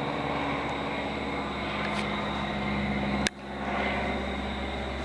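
Steady engine noise of a jet airliner passing overhead, with a sharp click and a brief dip in level a little over three seconds in.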